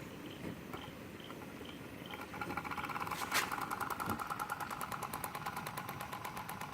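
Small model Stirling engine starting to run about two seconds in, with a rapid, even knocking and a steady whine, and one sharp click soon after it starts. It sounds unhealthy, which the owner puts down to the displacer not being tight on its rod.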